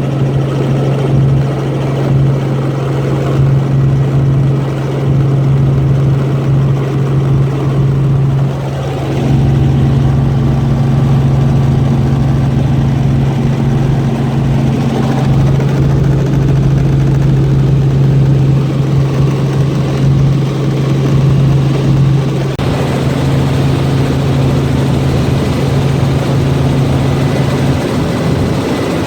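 Helicopter engine and rotor running steadily in flight: a loud, constant low drone that shifts slightly in tone a couple of times.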